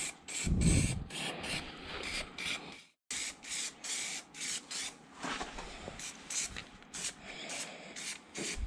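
Aerosol can of primer spraying in many short hissing bursts, one after another, with a brief break about three seconds in.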